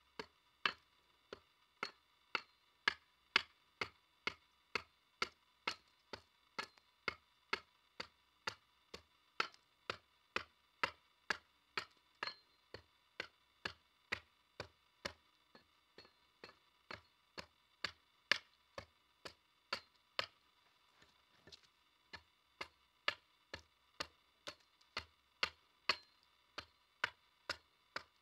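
A small axe, held short near the head, strikes a thin upright wooden pole in short light strokes, about two a second. Each stroke is a sharp knock with a brief ring, with a short lull about three quarters through.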